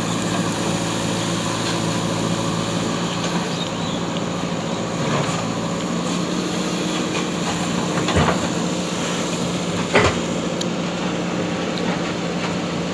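JCB backhoe loader's diesel engine running steadily, with two short knocks about eight and ten seconds in.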